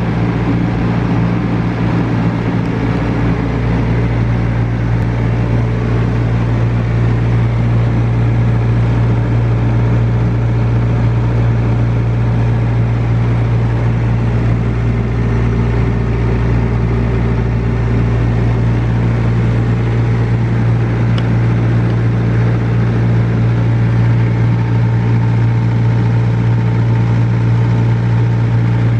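Carrier transport refrigeration unit on a semi-trailer running steadily, a constant loud low hum; it is holding the trailer's cargo space frozen at −22 °C.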